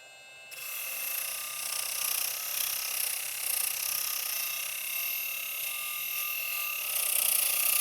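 Milwaukee M18 FUEL cordless die grinder running at high speed with a steady high whine, then grinding on metal with a harsh hiss from about half a second in, getting louder near the end.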